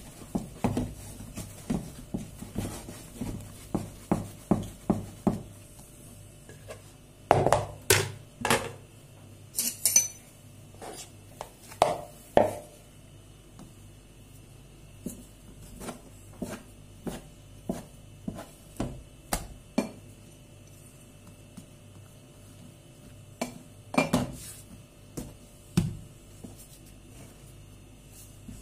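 Repeated light knocks and clinks of an enamel bowl and a metal dough cutter while risen yeast dough is pressed down and then divided on a wooden board. The knocks come about twice a second at first, with a cluster of louder ones about a third of the way in and another pair of loud ones later.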